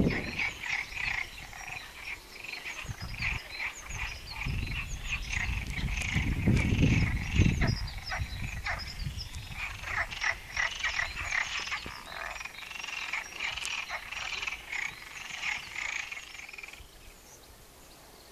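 A chorus of many frogs calling together, a dense stream of short rapid croaks that fades out near the end. A low rumble comes through for a few seconds about a third of the way in.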